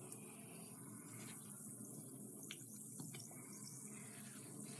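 Faint fizzing of a bath bomb dissolving in a sink of water: a steady hiss with a few tiny clicks.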